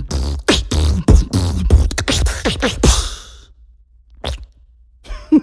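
Beatboxer's mouth imitation of a whoopie cushion: a fast run of lip pops and short buzzing blasts for about three seconds, then one lone click.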